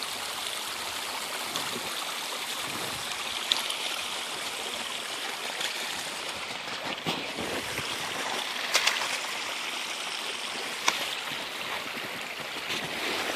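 Creek water running steadily, with a few short sharp clicks over it.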